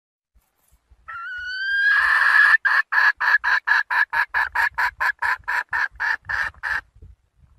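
Red junglefowl hen calling to a rooster, the lure call used to draw wild cocks. It is a drawn-out rising note, then a fast even run of short clucks, about four a second, that stops abruptly.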